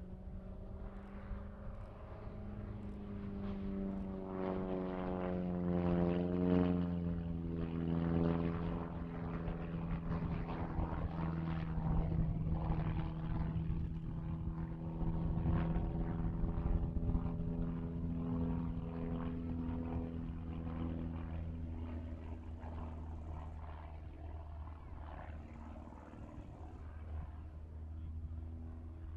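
Valmet L-70 Vinka's four-cylinder piston engine and propeller droning overhead through aerobatic manoeuvres. The pitch climbs and it grows loudest about six seconds in, holds steady for a long stretch, then drops and fades somewhat in the last several seconds.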